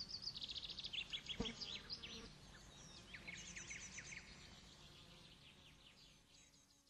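Small birds singing, a busy mix of rapid high chirps and trills that fades away about six seconds in, with one soft knock about a second and a half in.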